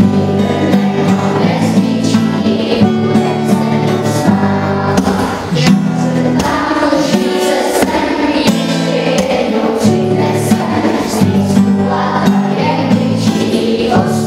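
Children's school choir singing a song together, with steady low instrumental accompaniment underneath.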